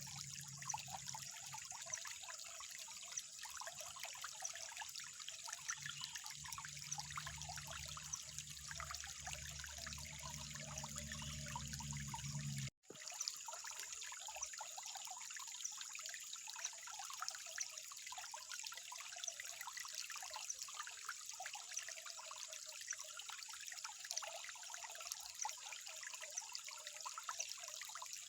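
Water trickling steadily, with small splashes and drips. A low hum underneath stops at a brief break about 13 seconds in, and the trickle carries on alone.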